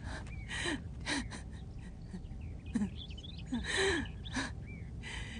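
A woman sobbing: a run of short gasping breaths broken by brief whimpering cries that fall in pitch.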